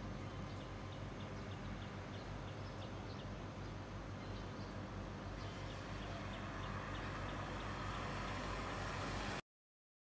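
Steady outdoor background noise: a low rumble with faint, short high chirps scattered through it. It cuts off suddenly near the end.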